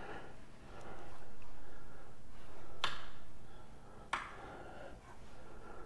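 Two sharp clicks just over a second apart, a wall light switch being flipped, over faint steady room noise.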